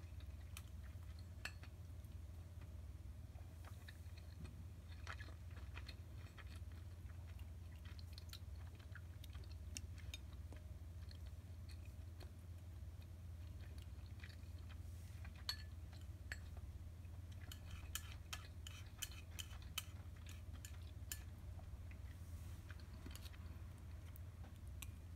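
Faint close-miked chewing of simmered flounder, with scattered small mouth clicks that come thickest about three-quarters of the way through, over a steady low hum.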